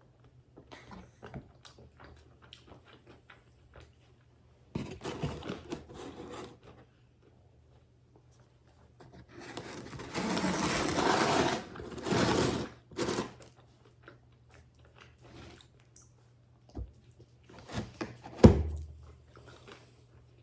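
Eating sounds: quiet chewing and small clicks, then a louder stretch of hissing noise lasting about three seconds from roughly ten seconds in, and a single sharp knock on the table near the end.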